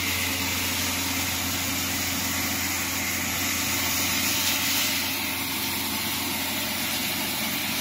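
Horizontal plastic flake dryer running: a steady motor hum under a continuous rushing hiss.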